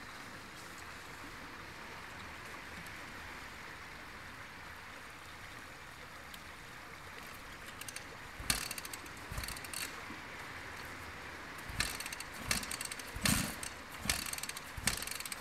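Dirt bike being kick-started over and over from about eight seconds in, each kick a thud with the clicking of the kick-start mechanism, and the engine does not catch. The riders suspect water got into the carburettor during the river crossing. A steady rush of stream water runs underneath.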